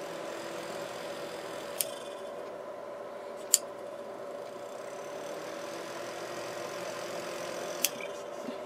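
Steady hum of a cooling fan running on electronics under power, with three short sharp clicks.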